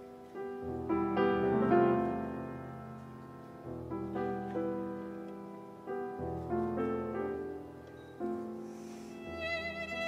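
Instrumental background music: slow piano chords with a violin, the violin's wavering notes coming forward near the end.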